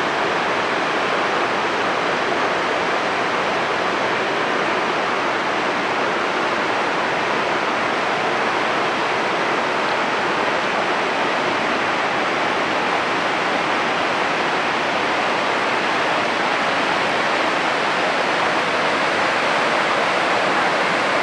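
Steady rushing of the whitewater at Lava Falls, a big Colorado River rapid, heard from the bank above it.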